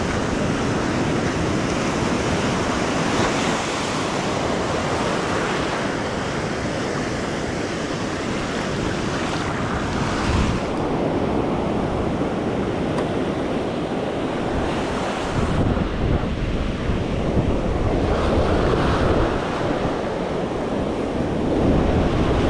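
Ocean surf breaking and washing on a beach, with wind rumbling on the microphone.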